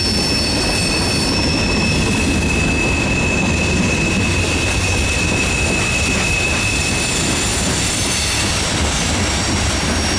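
Freight train's hopper and gondola cars rolling past: a steady rumble of steel wheels on rail, overlaid with thin high-pitched wheel squeal tones. The squeal fades out about seven seconds in.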